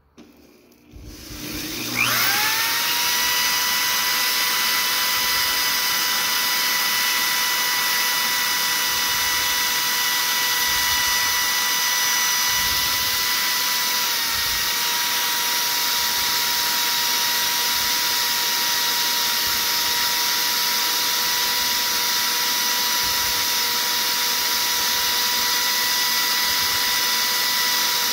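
Power drill spinning up about two seconds in and running steadily with a high whine, turning a small-block Mopar 318 oil pump drive shaft inside a worn sheet of 220-grit sandpaper to smooth light scoring on its bushing surface. The pitch dips slightly about halfway through.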